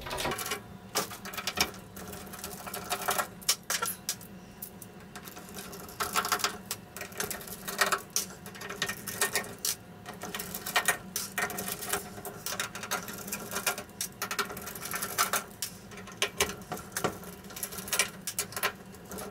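Small screws being backed out of the aluminium LED-backlight heatsink strip of an LCD TV with a hand screwdriver: irregular small metallic clicks and ticks of the bit on the screw heads and the metal rail.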